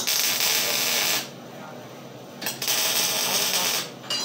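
MIG welding arc crackling in two short welds, each lasting a little over a second, with a pause of about a second between them, as steel is tacked together.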